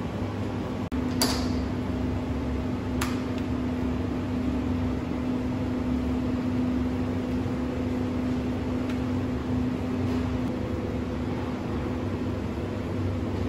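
Steady hum of kitchen machinery, a continuous drone with one held low tone, with a light clink about a second in and another about three seconds in.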